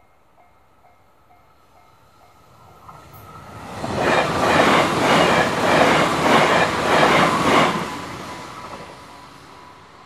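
A JR 383 series electric limited express train passes through a level crossing, swelling in from about three seconds in. Its wheels beat out a rapid, regular clatter over the rail joints for about four seconds, then the sound fades. Before it arrives, the crossing's warning bell rings faintly at about two strokes a second.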